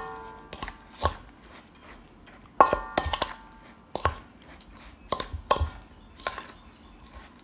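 Metal spoon stirring a dry ground seasoning blend in a stainless steel bowl: irregular scrapes, knocks and clinks against the bowl. A harder knock about two and a half seconds in leaves the bowl ringing briefly.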